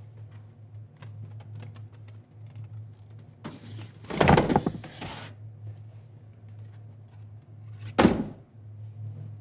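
A steady low hum under scattered light clicks, a loud rushing noise lasting about a second and a half from about three and a half seconds in, then one sharp thunk about eight seconds in.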